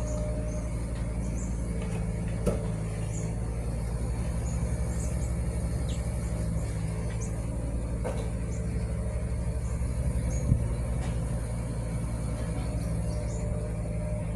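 An engine running steadily at a constant speed, with a couple of sharp knocks, about two and a half seconds in and near ten and a half seconds in.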